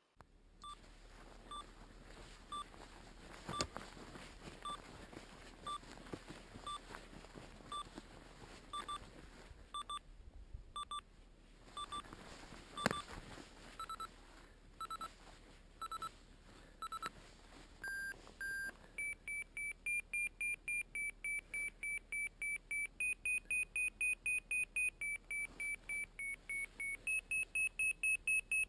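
Ortovox 3+ avalanche transceiver in search mode giving its locating beeps. They start slow at about one a second, then step up in pitch and rate, and become a fast, higher-pitched beeping about two-thirds of the way in: the sign of the searcher closing in on a buried transmitter.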